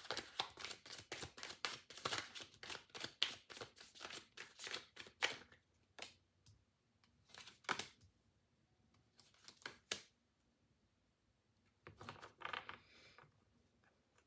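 A tarot deck being shuffled, a quick run of card clicks for about five seconds. Then come a few separate card snaps and a brief rustle as cards are drawn and laid down.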